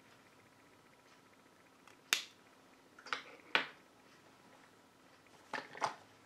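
Sharp clicks and taps of makeup packaging being handled: one about two seconds in, two more about a second later, and a close pair near the end.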